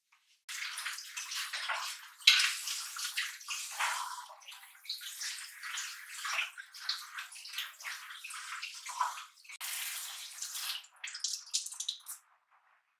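Running water splashing unevenly, as from a tap, starting about half a second in and stopping shortly before the end.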